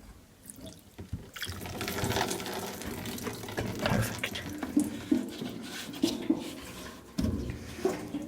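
Wet scrubbing and splashing as a greasy part is brushed with liquid degreaser, with small clicks and spatters throughout.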